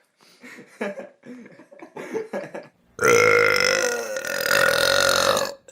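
A person lets out one long, loud belch that starts about three seconds in, lasts over two seconds and cuts off abruptly. A few short, faint sounds come before it.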